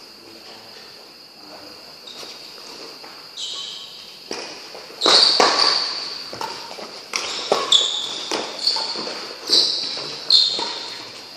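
Badminton rally in a large, echoing hall: sharp racket strikes on the shuttlecock, about one a second, starting about four seconds in, mixed with high squeaks of shoes on the court floor.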